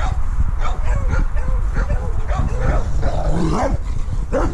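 Dogs barking and yelping in rapid, overlapping calls, with a longer drawn-out whining call about three seconds in.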